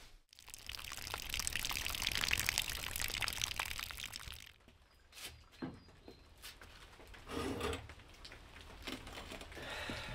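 Rain pattering and dripping, a dense patter of small ticks that is heaviest in the first four seconds and then thins out. A brief dull rustle comes about seven and a half seconds in.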